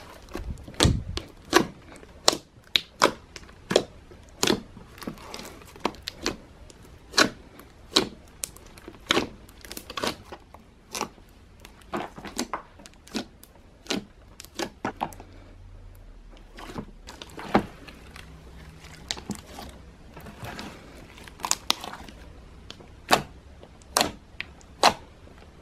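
Giant batch of gold slime squeezed, folded and poked by hand in a plastic tub, making a run of irregular sharp pops and squelches, about two or three a second.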